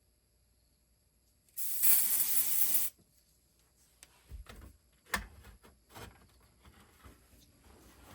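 Aerosol smoke-detector test spray hissing in one burst of just over a second, sprayed at the smoke alarm for a smoke test. A few light knocks and clicks of handling follow.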